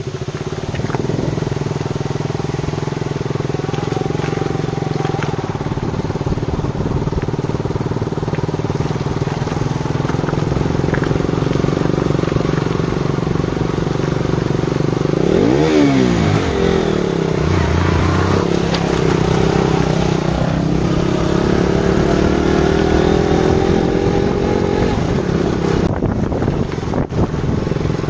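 Motorcycle engines running steadily while riding a rough dirt road, with a brief dip and rise in engine pitch about halfway through.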